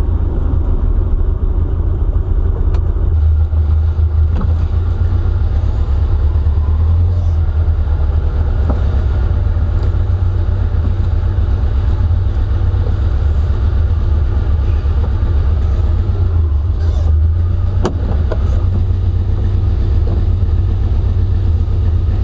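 1973 VW Super Beetle's air-cooled 1900 cc flat-four on twin EMPI 40 IDF carburettors, driving, heard from inside the cabin as a steady low rumble. The engine is running cleanly on its new carburettor, with no backfiring or sputtering.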